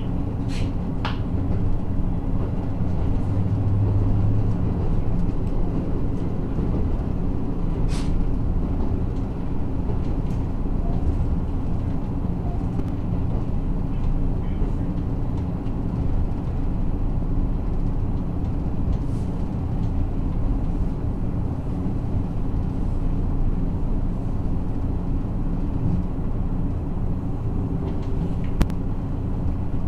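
The KiHa 54 diesel railcar's engine running with a steady low drone, heard from inside the passenger cabin, with a few sharp clicks: two near the start, one about eight seconds in and one near the end.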